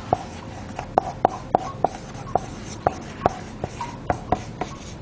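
Marker pen writing on a whiteboard: a run of short, irregular clicks and scrapes from the pen strokes, about two to three a second.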